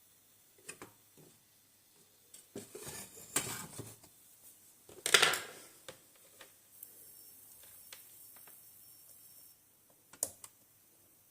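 Small metal tools and parts being handled on a workbench: scattered light clicks and two short bursts of scraping clatter, the louder one about five seconds in, with a single click near the end.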